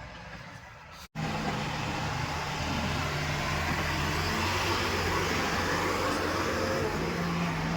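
Diesel engine running steadily, with a steady low hum under a broad rushing noise; it breaks off sharply about a second in and comes back louder.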